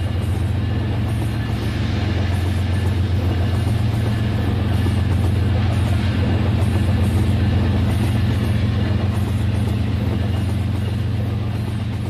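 Steady, low engine drone that holds constant without revving.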